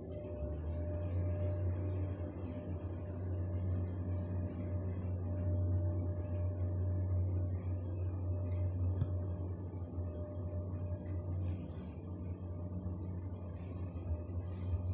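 Schindler 3300 lift car travelling downward, heard from inside the car: a steady low hum of the ride with a faint steady whine above it.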